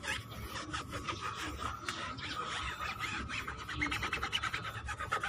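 Cloth rubbing back and forth over a rubber tyre sidewall in quick, short, scraping strokes, several a second.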